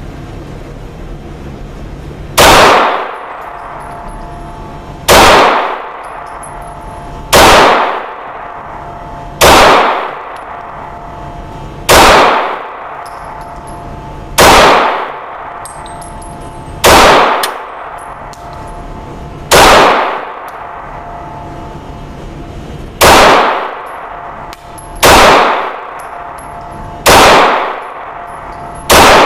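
Glock 19 pistol firing 9mm rounds in slow, deliberate single shots, one every two to three seconds, about a dozen in all, each shot echoing briefly off the walls of an indoor range over a steady background hum.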